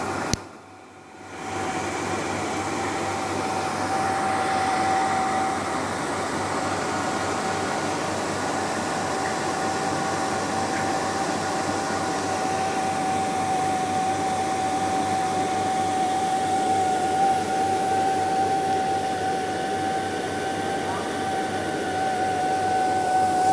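A 3D-printer filament extrusion line running: a steady machinery hum and hiss with a steady whining tone, broken by a click and a drop of about a second just after the start.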